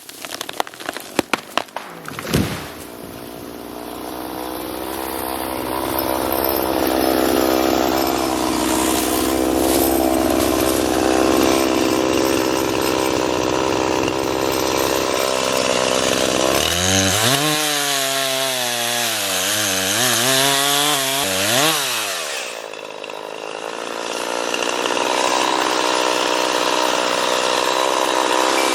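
Chainsaw running at high speed, after a few sharp clicks at the start. About two-thirds of the way through, the engine speed drops and rises several times, then it runs steady again.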